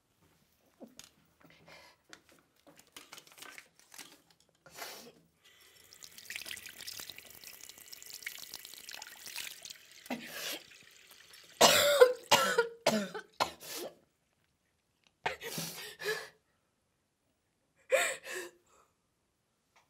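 A bathroom tap runs into a sink for a few seconds. Then a woman coughs in three groups of short, loud coughs; the first group is the loudest.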